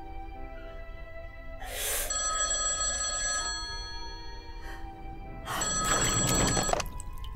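A telephone ringing in two rings, the first starting about two seconds in and the second about five and a half seconds in, over sustained background music.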